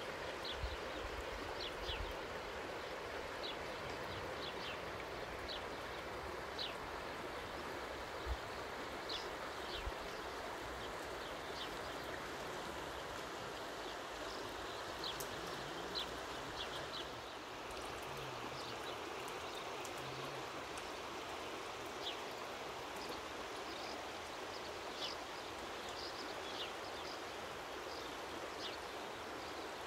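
Steady rush of the river Doubs flowing fast past the bank, with short high chirps scattered throughout.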